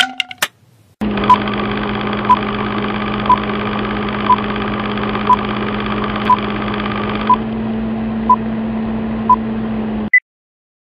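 Film-leader countdown sound effect: a few clicks, then a steady hum with a short beep once a second, nine beeps in all. It ends on a brief higher blip and cuts off suddenly just after ten seconds in.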